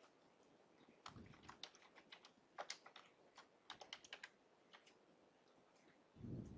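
Faint computer keyboard typing: a quick run of key clicks lasting about four seconds as a short name is typed. A low, dull thump follows near the end.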